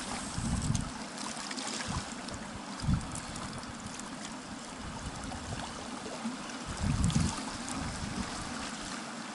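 Steady rush of river water, with a few low thumps on the microphone, the strongest near three seconds in and around seven seconds.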